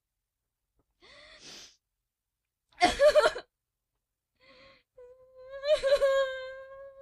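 A voice making crying-style sound effects: a breathy gasp about a second in, a louder sharp gasp around three seconds, then a long, steady high-pitched wail near the end.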